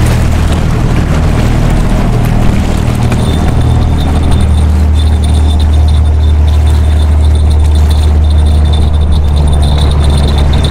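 A steady low engine drone, with a faint steady high whine joining about three seconds in.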